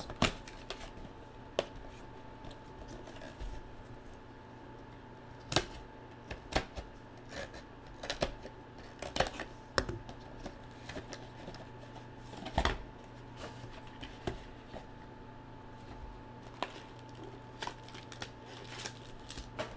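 Cardboard trading-card box (Absolute Football) being opened and its foil-wrapped packs handled: scattered sharp clicks, snaps and crinkles of card stock and foil, over a faint steady hum.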